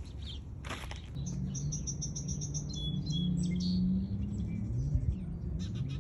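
Small songbirds chirping, with a quick run of repeated high notes about a second in. A low wavering hum of unclear source sets in underneath at the same time and is the loudest thing near the middle.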